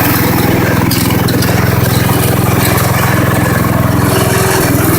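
Small engine of a modded lawn tractor running steadily through a homemade exhaust built from a four-wheeler's, with an even, rapid firing beat while it is driven along.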